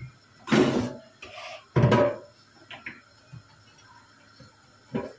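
Kitchen handling sounds of dishes and the air fryer on the counter: two short clatters, about half a second in and about two seconds in, with a few smaller knocks between.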